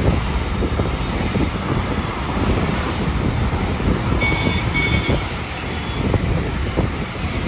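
Wind buffeting the microphone at an open bus window over the steady low rumble of the moving bus and the surrounding road traffic. Two short faint high beeps sound about four seconds in.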